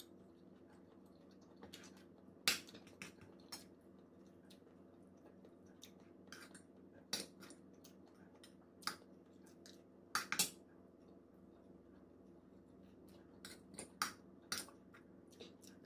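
Metal fork and spoon clinking and scraping on a ceramic plate while picking apart a fish, in short sharp clicks scattered every second or so, over a faint steady hum.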